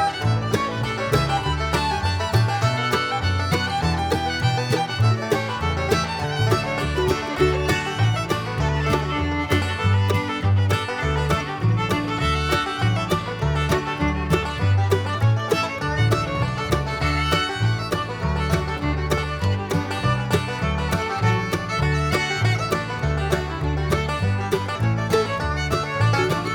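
Upbeat bluegrass-style instrumental background music with fiddle, banjo and guitar over a steady bass line.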